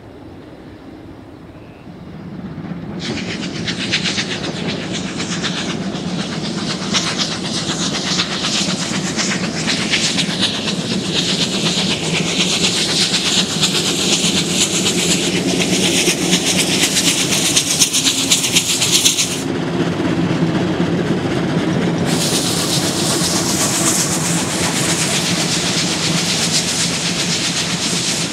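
Train of the C56 160 steam locomotive and an electric locomotive passing, with steam hissing and wheels clattering over rail joints. It swells about two to four seconds in as the train comes close, and the hiss drops away briefly about two-thirds of the way through.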